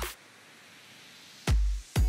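Electronic background music. The beat drops out for about a second, leaving only a faint hiss, then comes back with a heavy bass hit near the end.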